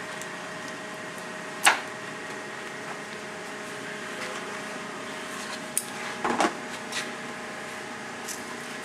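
One sharp snip about two seconds in as hand snips cut through a rubber door seal, then a few lighter clicks and knocks near the end as the door frame is handled, over a steady background hum.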